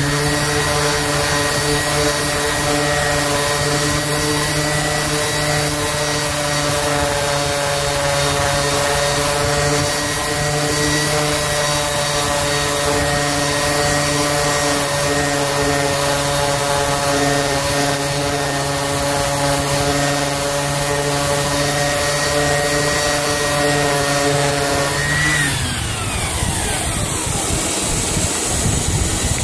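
Electric random orbit sander running steadily while it sands CNC tool-mark ridges off a wooden centerboard, with a rubbing hiss from the pad on the wood. Near the end the motor is switched off and winds down, and a steady rushing noise carries on.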